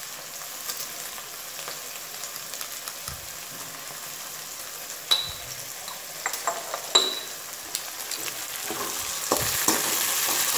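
Chopped onion and tomato sizzling in oil in a pan, a steady frying hiss that gets louder near the end. Twice in the middle, a short ringing clink as salt is taken from a ceramic jar.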